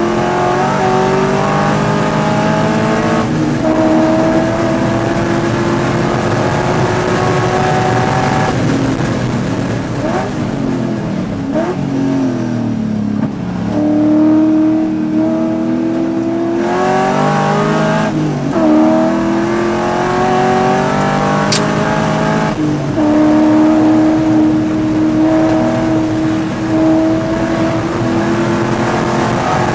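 Race car's engine heard from inside the cockpit at full throttle: revs climb and drop sharply with each upshift every few seconds, and twice the pitch falls in quick dips and blips as it downshifts for a corner before pulling up through the gears again.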